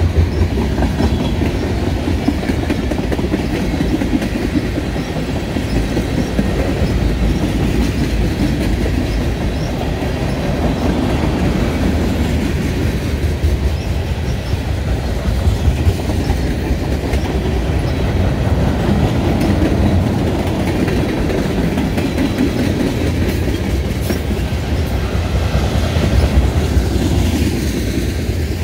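Freight train cars (boxcars, lumber flatcars and tank cars) rolling past close by, a steady noise of steel wheels running on the rails that holds at the same level throughout.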